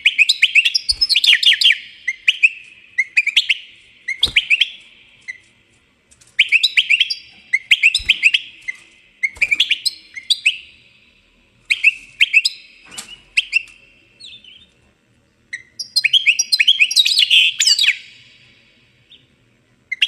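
Small birds chirping in rapid bursts of high, quick chirps, grouped into spells of a second or two with short pauses between, and a few soft knocks in between.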